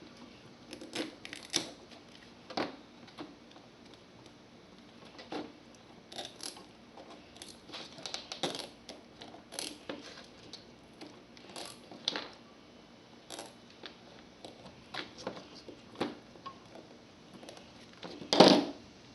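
Irregular small clicks, taps and rattles of metal scrap parts and tools being handled while a speaker is stripped for its copper, with a louder clatter near the end.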